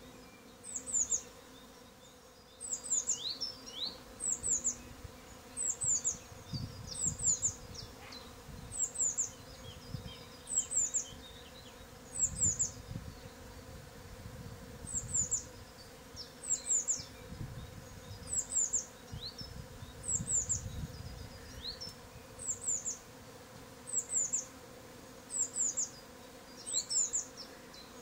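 Honeybees buzzing around the entrance of a hollow-log hive, a steady hum that swells now and then as bees fly close. Over it a small bird calls over and over, a short high call of two or three quick falling notes about every one and a half seconds, louder than the buzzing.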